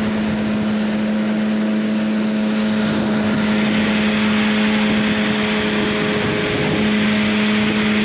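1994 Yamaha WaveRaider 700 jet ski's two-stroke twin engine running steadily at a constant pitch, under way over a steady rushing noise.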